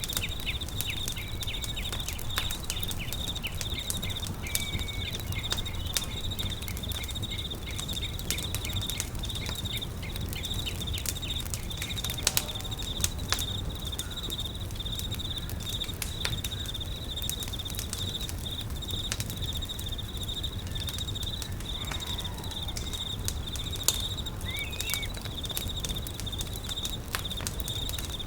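Campfire crackling, with frequent sharp pops and snaps, over a steady high-pitched insect trill. A few brief bird chirps come in, one about four seconds in and another near the end.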